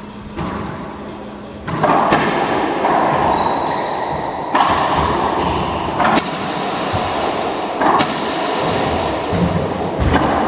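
Racquetball rally: the hollow rubber ball cracks sharply off racquets and the court walls about every two seconds, echoing in the enclosed court.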